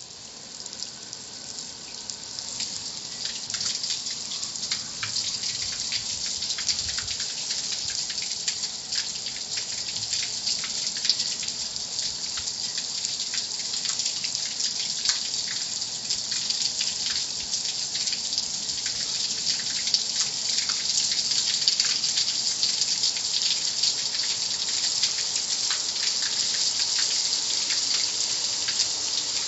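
Car wash water spray hissing steadily, with many small splashes ticking against a surface; it builds up over the first few seconds and then holds.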